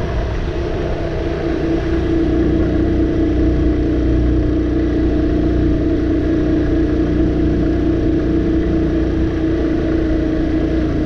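Motorcycle engine running steadily at cruising speed, heard from the rider's seat, with a low rumble underneath. It gets a little louder over the first two seconds, then holds an even note.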